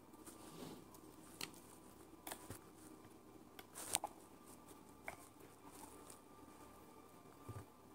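A few faint clicks and taps of a plastic marker pen being handled and set against a hard phone case, the loudest about four seconds in.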